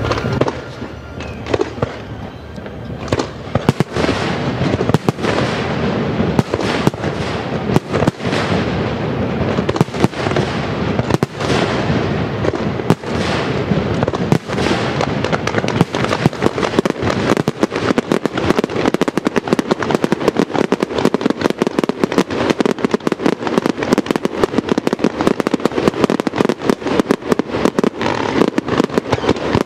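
Fireworks display going off: separate loud bangs about every second or so, then from about halfway a dense, nonstop barrage of reports.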